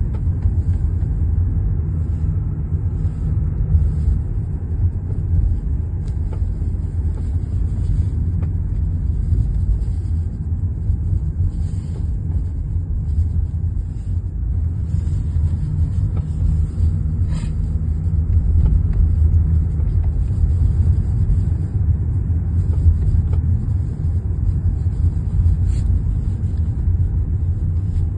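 Lexus GS (L10) on the move, a steady low road rumble with irregular short knocks from the front suspension. The knocking comes from worn front strut upper mounts, which the owner says knock hardest when cold.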